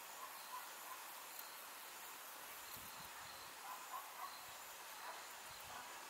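Faint outdoor summer-field ambience: steady high insect chirring, with a few short chirps near the start and again about four seconds in. Two soft low thumps come about three seconds in and near the end.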